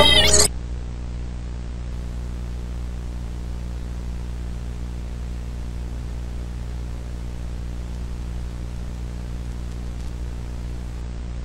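Music cuts off about half a second in, leaving a steady low electrical hum with a hiss of static underneath.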